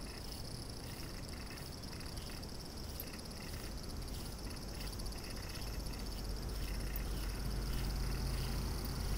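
A steady, high-pitched chorus of insects, with short calls repeating irregularly over it. A low rumble builds toward the end.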